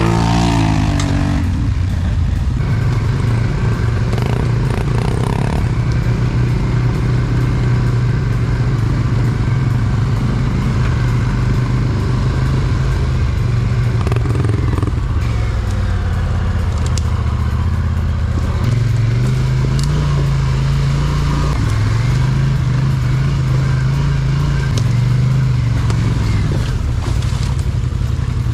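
Polaris Scrambler ATV's parallel-twin engine running at low trail speed, its pitch rising and falling with the throttle.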